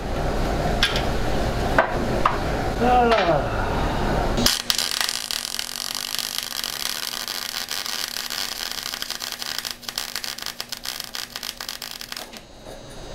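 Clinks and knocks of hand tools on the engine. Then, about four and a half seconds in, a MIG welder's steady arc crackle with a low hum under it, which stops shortly before the end; a nut is being welded onto an exhaust-manifold stud to get a grip on it.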